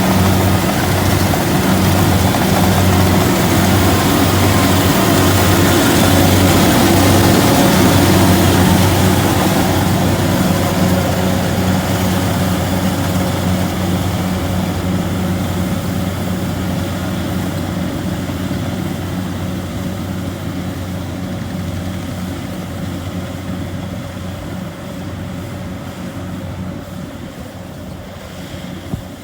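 Kubota combine harvester's diesel engine and threshing machinery running steadily with a low hum, the sound fading gradually over the last two thirds.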